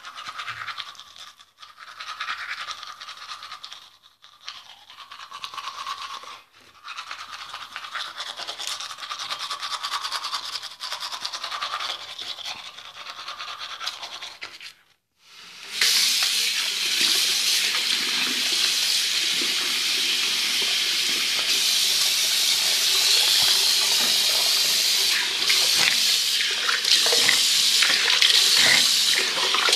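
Manual toothbrush scrubbing teeth in quick back-and-forth strokes, with a few short pauses. About halfway through, a louder steady rush of running water starts and carries on.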